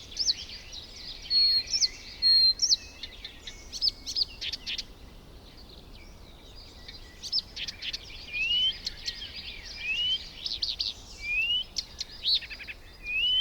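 Several birds calling and chirping over one another in short sharp notes. In the second half a rising whistled note repeats about every second and a half.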